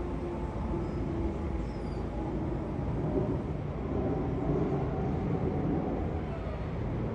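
Jet engine rumble from a British Airways Airbus A380 passing overhead, its four Rolls-Royce Trent 900-series turbofans heard as a steady low roar that grows a little louder about three seconds in.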